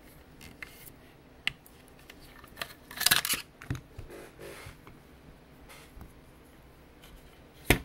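A screwdriver working a screw out of a sheet-metal power supply case: small metal clicks and scrapes, with a louder scraping rattle about three seconds in and a sharp click near the end.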